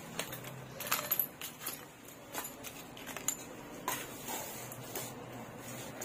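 Packaged metal spoon fishing lures being picked up and set down one by one: irregular light clicks and taps of the plastic-and-card packets.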